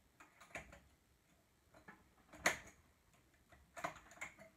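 Scattered light clicks of a three-prong transfer tool on knitting machine needles as stitches are lifted off and moved across to other needles. The sharpest click comes about two and a half seconds in, and a small cluster of clicks comes near the end.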